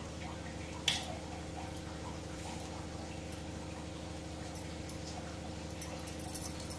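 Steel pav bhaji masher pressing into boiled potatoes on a steel plate: soft, irregular light taps, with one sharp metal tap about a second in, over a steady background hum.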